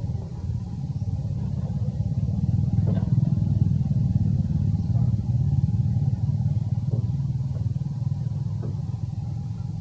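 A steady low engine drone, like a motor running at idle, getting a little louder a few seconds in, with a few faint short sounds above it.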